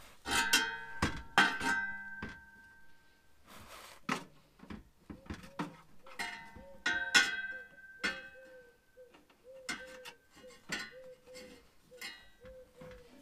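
Stainless steel exhaust pipe clanking and ringing as it is worked by hand into the joint with the old exhaust. The loudest metallic knocks come near the start, about a second and a half in, and about seven seconds in, over light plucked-string background music.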